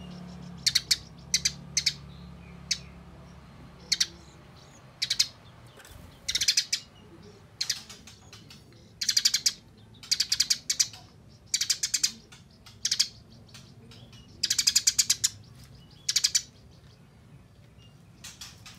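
Eurasian tree sparrow giving rapid, harsh chattering bursts, the tight 'nyerecet' fighting call, in short clusters of fast notes about a second apart with brief pauses between.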